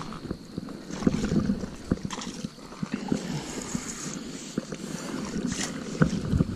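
Shallow river water splashing and lapping at a gravel bank, with scattered knocks and crunches of footsteps on wet gravel in the shallows.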